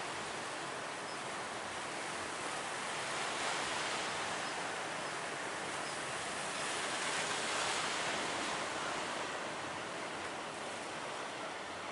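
Big ocean waves breaking in a continuous wash of surf, swelling a little louder about three and a half seconds in and again around seven to eight seconds in.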